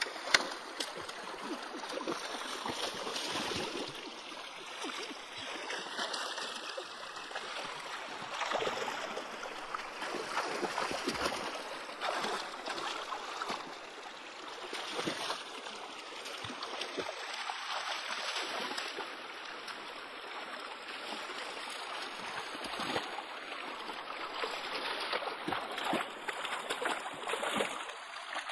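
Shallow rocky stream running, with irregular splashing and sloshing as hands and legs move through the water, groping among the stones.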